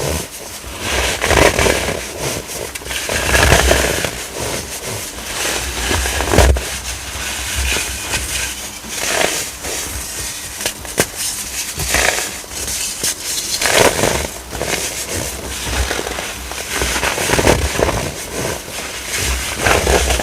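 Compressed baking soda being crushed, giving a continuous, irregular crunching and crackling with heavier crunches every second or two.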